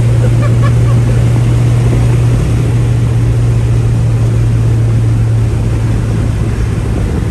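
Vehicle engine running at a steady speed while driving, a loud, even low drone with road noise, easing slightly about two-thirds of the way through.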